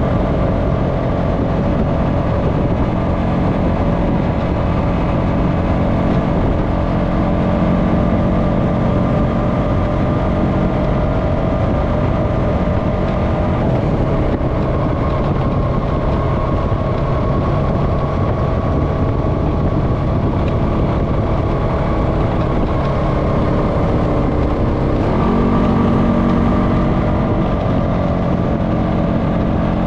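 Honda FourTrax Foreman ATV's single-cylinder engine running steadily while riding along a dirt trail. Its note changes abruptly late on.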